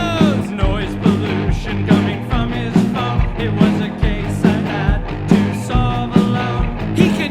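Rock band's demo recording playing with a steady drum beat, bass and guitar.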